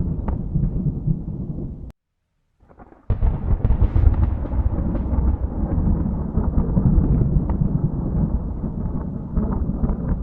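Thunder rumbling and rolling, heaviest in the deep low end. About two seconds in it drops out into a brief silence. Just after three seconds a sudden new peal comes in and keeps rumbling.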